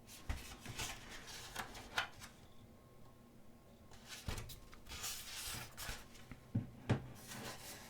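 Thick pages of a photobook being turned and handled: faint paper rubbing and swishing, with a few light taps.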